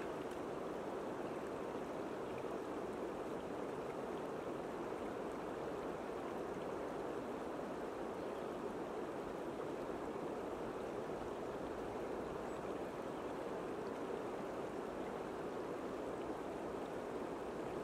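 Shallow river water flowing steadily over rocks, an even rushing with no breaks.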